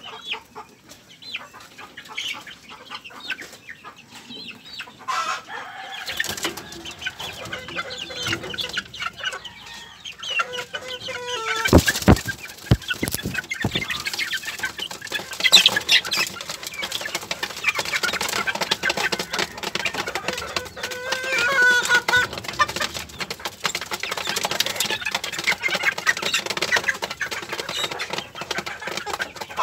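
Chickens clucking and calling while they peck at feed, with wing flapping and many short pecking clicks. A cluster of sharp, loud knocks comes about twelve seconds in.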